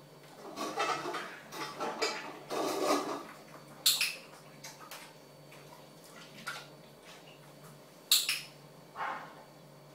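English bulldog eating from a metal food bowl on a hard floor: a stretch of chewing and licking, then the bowl clanking sharply twice, about four and eight seconds in, with smaller knocks between.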